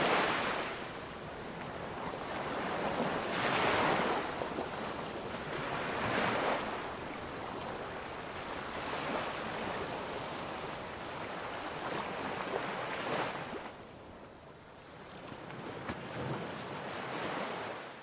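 Ocean surf: waves breaking and washing up a sandy beach, swelling in a hiss every few seconds, then fading out at the end.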